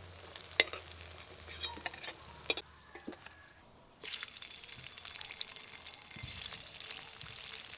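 Hot oil sizzling and crackling in an aluminium kadai as papaya dhoka pieces fry, with sharp pops over the hiss at first. It drops away briefly about three seconds in, then comes back as a denser, steady sizzle when fresh pieces go into the oil.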